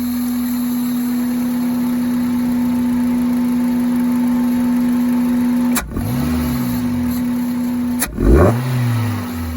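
2003 Toyota Corolla's 1ZZ-FE four-cylinder with a short ram intake and catless exhaust, held at a steady speed with an even drone, then revved twice about six and eight seconds in, the second rev louder, each rising and falling back.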